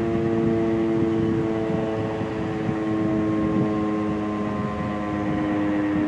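Federal Signal Thunderbeam RSH-10 rotating outdoor warning siren sounding its steady alert, a sustained chord of several tones that sinks slightly in pitch.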